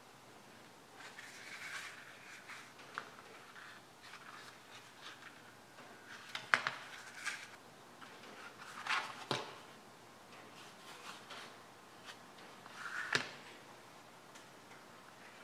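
Handling noise of leather pieces being slid, lifted and set down on a wooden workbench: scattered light taps and rustles, with the sharpest about six and a half seconds in and two more near nine and thirteen seconds.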